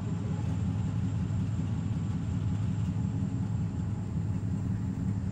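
A vehicle engine running slowly, a steady low rumble with no change in pitch.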